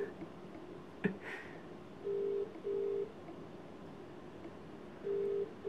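Telephone ringback tone through a mobile phone's loudspeaker, in the British double-ring pattern: two short beeps close together, the pair repeating about every three seconds while the call waits to be answered. A single click about a second in.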